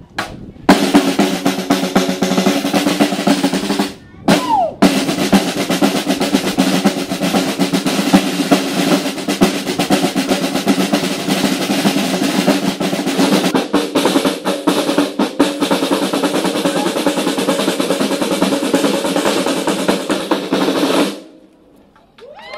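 A drumline of Pearl marching snare drums playing fast rolls and rhythms in unison. It starts about a second in, breaks off briefly about four seconds in, then plays on and stops abruptly near the end.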